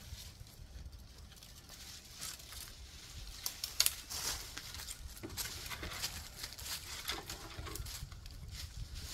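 Dry tree limbs and twigs crackling and scraping as they are handled and dragged onto a brush pile, with dry leaf litter rustling and crunching underfoot. There is a sharper crack near four seconds in.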